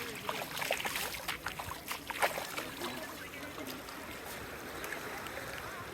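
Shallow seawater lapping and splashing at the shore, with a hiss and many short sharp splashes, the loudest about two seconds in, easing off toward the end.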